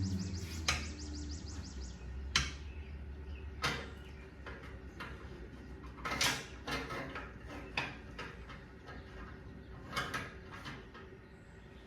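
Scattered sharp clicks and knocks of metal exhaust parts and hardware being handled and fitted while a slip-on muffler is hung on a motorcycle exhaust, about a dozen at irregular intervals.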